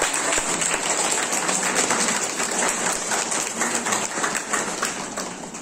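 Small audience clapping, a steady patter of applause that thins out near the end.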